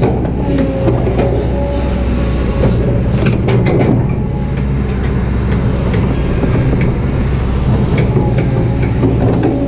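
Kobelco SK200-8 excavator's diesel engine and hydraulics running steadily under load, with a faint whine coming and going. A cluster of sharp metallic clicks and clanks comes about three to four seconds in.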